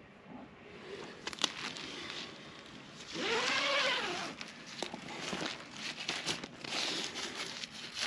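Light rustling and crinkling of the tent's nylon rain fly with scattered small clicks. About three seconds in, a single pitched call rises and falls over about a second and is the loudest sound.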